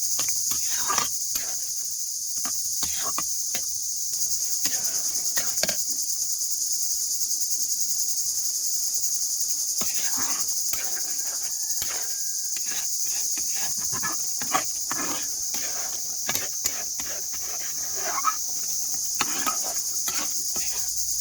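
Steady chorus of crickets, a continuous high-pitched trill, with scattered faint clicks and knocks throughout.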